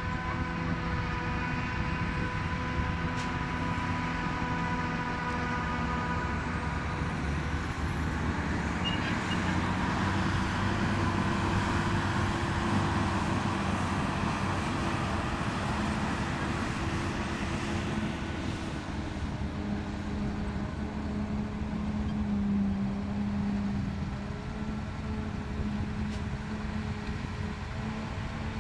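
Diesel engines of heavy haylage-harvesting machinery running steadily, with a faint high whine that rises about eight seconds in and dies away near eighteen seconds.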